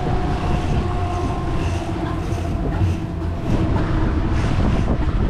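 Boat motor running steadily at trolling speed, a deep rumble with a held hum over it, mixed with wind and water noise.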